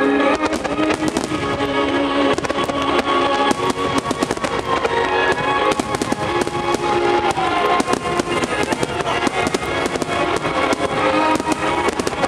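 Fireworks bursting and crackling in quick succession, many sharp reports a second, over loud music with sustained notes.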